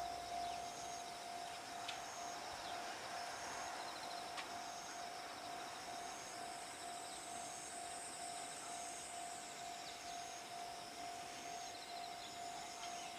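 Faint background sound: a steady whine held at one pitch throughout, with short high insect chirps repeating about every second and a half.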